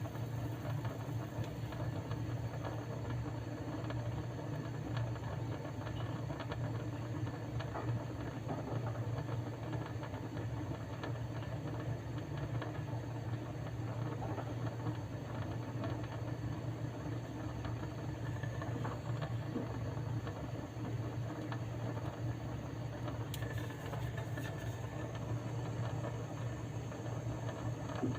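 A steady low mechanical hum that holds even throughout, with no strokes or pauses.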